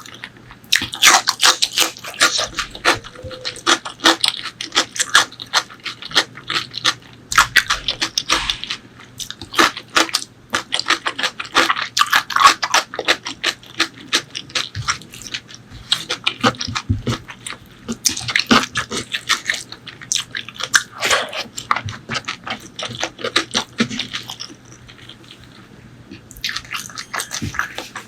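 Close-miked chewing and wet lip-smacking of a person eating pork leg curry with rice, a dense run of quick sticky clicks. It eases off for a couple of seconds near the end, then resumes.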